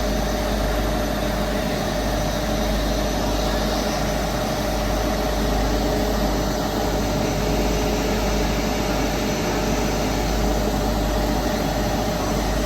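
The Nilgiri Mountain Railway train making a steady, even running noise: a low rumble with a constant hum over it, unchanging throughout.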